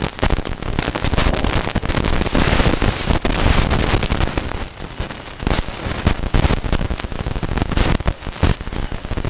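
Loud, continuous crackling noise on the microphone feed, dense and irregular, with no voice over it.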